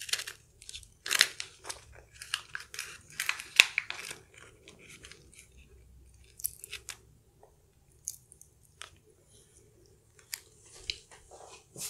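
Close-miked eating of chocolate lava cake from a foil cup: a plastic spoon scrapes and taps the foil, with chewing and mouth clicks. The sharp crackles come thickly for the first four seconds, then only now and then.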